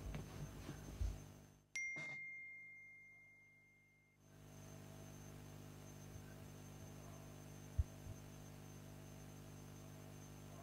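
A single bright ding, about two seconds in: one bell-like tone that rings and fades away over about two seconds. A faint steady hum runs underneath.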